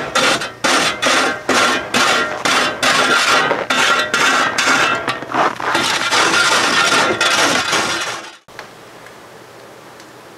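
Snow shovel scraping and knocking on wooden stairs as snow is cleared, in quick repeated strokes, about two or three a second. The strokes stop abruptly about eight seconds in, leaving a faint steady hiss.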